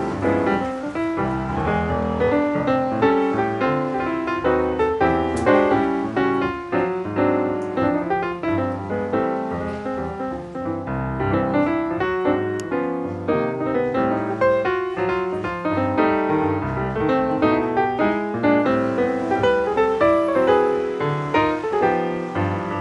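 Background piano music, many quick notes played continuously.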